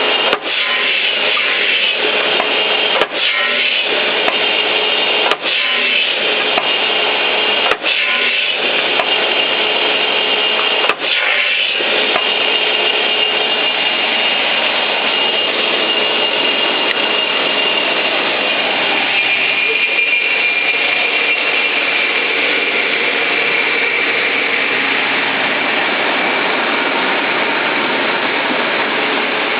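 TriState pneumatic upcut saw with an 18-inch blade running with a steady whine. A sharp click with a short dip in the sound comes about every two to three seconds for roughly the first eleven seconds, five times in all, then it runs on steadily.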